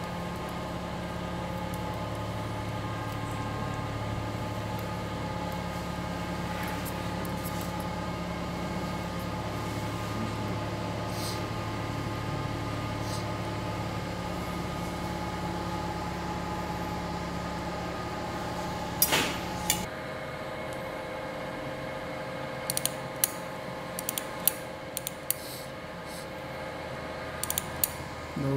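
Steady machine hum of several fixed tones from operating-theatre equipment. About two-thirds of the way through, a sharp click comes and the deepest part of the hum cuts out; a few short clicks follow near the end.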